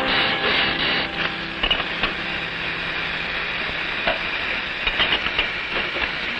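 Background music from the film score fades out about a second in, leaving a steady, even hiss of an old soundtrack.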